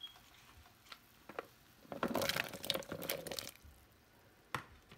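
Chopped carrot pieces tipped into a pot of boiling broth: a clatter of splashes and plops lasting about a second and a half, followed by a single sharp knock near the end.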